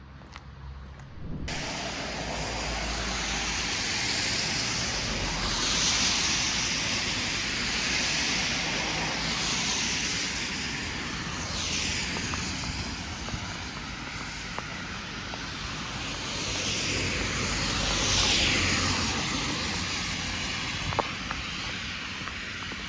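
Street traffic going by: several vehicles pass one after another, each a swelling tyre-and-engine hiss that falls in pitch as it goes past. The sound starts abruptly about a second and a half in.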